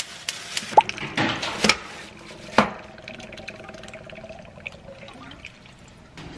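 Chicken broth pouring from a carton into a clay pot packed with food, a running, splashing pour with a few small knocks. The pouring stops after about two and a half seconds, ending with a sharp knock, and a quieter stretch follows.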